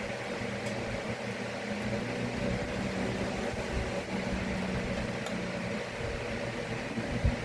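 Steady fan-like mechanical hum with a faint click or two and a low thump just before the end.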